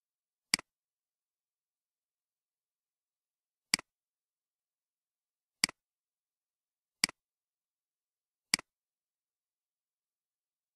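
Five single computer mouse clicks, irregularly spaced a second or more apart, with dead silence between them.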